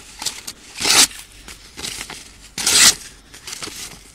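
Laguiole knife blade slicing through a sheet of paper: two sharp swishing strokes about two seconds apart, with softer paper rustling between them, as a test of how sharp the blade is.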